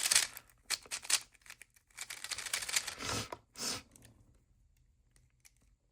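A new WeiLong V11 maglev 3x3 speed cube being turned by hand: a quick, irregular run of plastic clicks and clacks from its layers for about four seconds, then it goes much quieter.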